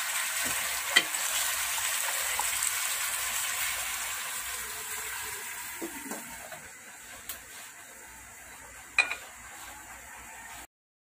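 Chicken pieces and ginger sizzling in a stainless-steel pot as they are stirred with a spatula, with a few scrapes and clicks. The sizzle fades as the pot is covered with its metal lid, and there is a sharp clank about nine seconds in. The sound cuts off just before the end.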